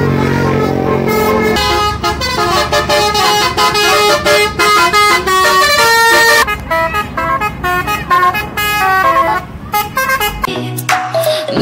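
Tour bus's Basuri telolet musical horn, sounding through roof-mounted trumpets and playing a tune: a held note first, then a quick run of stepped notes.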